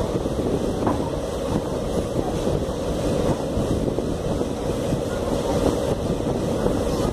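Passenger train coach running steadily on the rails, heard from an open window or door, with wind buffeting the microphone.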